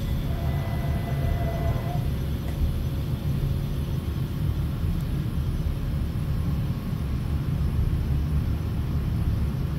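Steady low rumble, with a faint servo whine over the first two seconds as the Haas VF-6's trunnion rotary table tilts.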